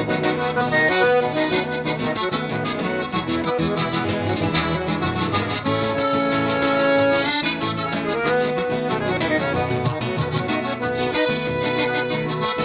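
Accordions playing an instrumental break in a gaúcho song, with sustained and running melody notes over a steady, quick rhythm from the band.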